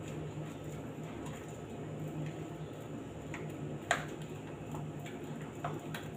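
A few light clicks and ticks from hands working over a cooking pot, the sharpest about four seconds in, over a steady low hum.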